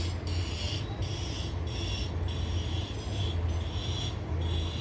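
A large bus engine running at idle, a steady low rumble. Over it a higher hissing sound pulses on and off about twice a second.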